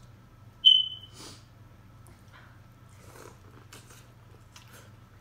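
Close-up eating sounds: a short, sharp high-pitched squeak about half a second in, the loudest thing here, then faint chewing, mouth clicks and smacks.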